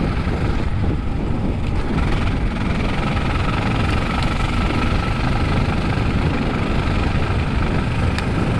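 Suzuki DR650's single-cylinder four-stroke engine running steadily under load as the motorcycle rides up a mountain road.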